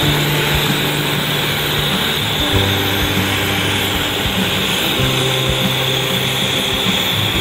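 Gas torch flame hissing steadily as it heats the soldered seam of a copper-brass radiator top tank. Background music with long low notes changing every couple of seconds runs beneath it.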